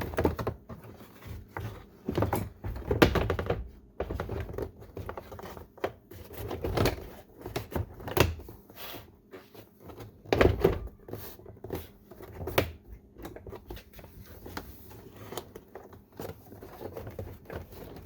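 Plastic interior door trim panel and its wiring being handled and fitted: irregular knocks, clicks and rustling, with a few louder thunks spread through.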